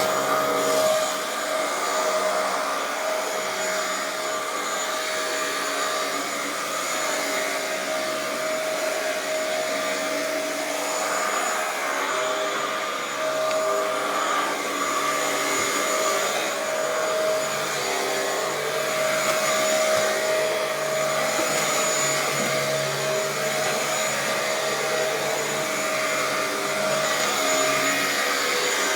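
Dyson DC07 upright vacuum cleaner running continuously over carpet: a steady motor hum with a high whine, its level shifting slightly as it is pushed back and forth.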